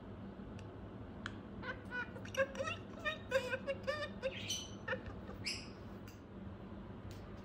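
Budgerigar chattering in a quick run of short warbled syllables and chirps with its head inside a stainless-steel water bottle, with a few sharp clicks mixed in.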